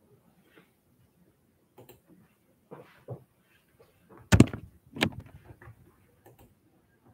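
Handling noise as the camera is moved: faint clicks and rustles, then two sharp knocks about half a second apart a little after the middle.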